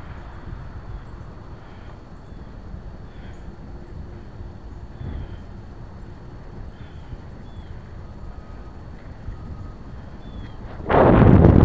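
Steady wind and road rumble on a camera moving along a road, with a few faint high chirps above it. Near the end a loud rush of wind buffets the microphone for about a second.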